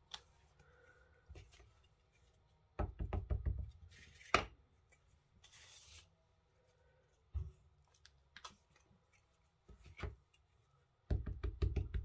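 Clear acrylic stamp block knocking and tapping on card and the craft mat as bubble stamps are positioned and pressed, with quick runs of taps about three seconds in and again near the end, single knocks between, and a brief rub around the middle.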